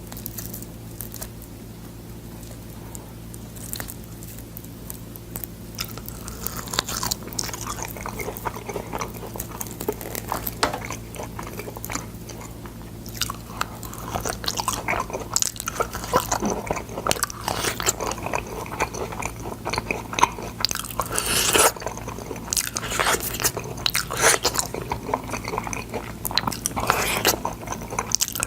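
Close-up biting and chewing of boiled sword bean pods, with many sharp crunches. Fairly quiet for the first few seconds, then dense crunching from about six seconds in, over a steady low hum.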